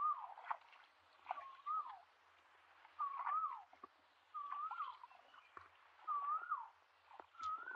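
A bird repeating the same short whistled call about every second and a half, six times: a brief level note that rises and then falls away. Water sloshes and splashes in between.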